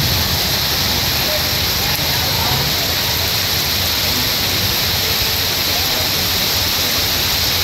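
Heavy rain pouring down on a city street, a steady, dense hiss of the downpour on the road and parked vehicles.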